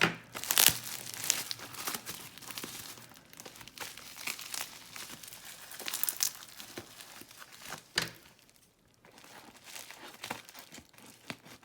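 Packaging being unwrapped by hand: irregular crinkling, rustling and tearing of wrapping, with sharp crackles now and then.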